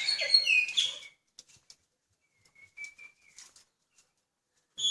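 A pet songbird gives a quick run of clear whistled notes and glides in the first second. It then falls mostly quiet, with a few faint ticks and one soft thin whistle about three seconds in.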